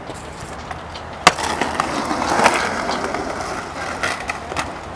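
Skateboard on concrete: a sharp clack a little over a second in, then about two seconds of wheels rolling, with a few lighter clacks near the end.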